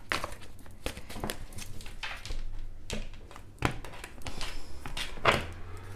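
A deck of tarot cards shuffled by hand: quick, irregular slaps and flicks of the cards against each other. Near the end the deck is cut into piles and set down on a table.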